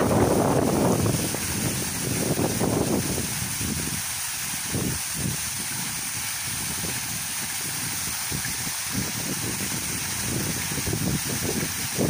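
Waterfall: a steady rush of falling water, with uneven low rumbling gusts of wind on the microphone, strongest in the first second and near the end.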